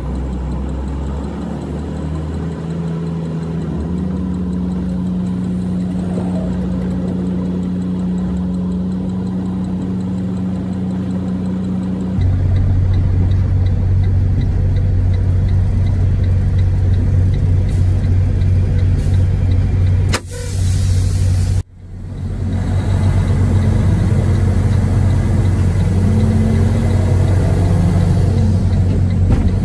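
Semi-truck's diesel engine running, heard from inside the cab as the truck moves slowly. Its pitch steps up about four seconds in, and about twelve seconds in it turns into a louder, lower drone. Around twenty seconds there is a short burst of noise and a sudden dropout, then the drone resumes with a few small rises and falls in pitch.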